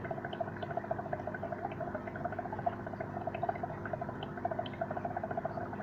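Aquarium sponge filter bubbling steadily, a dense run of rapid little pops, over a steady low hum.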